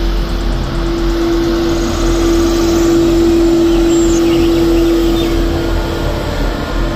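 Street sweeper truck driving past with its rotating brushes on the road: a steady mechanical drone with one held tone, loudest about three seconds in.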